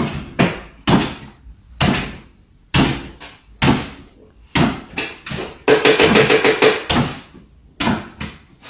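A series of sharp knocks or bangs, about one a second, with a quick rattling run of rapid knocks in the middle.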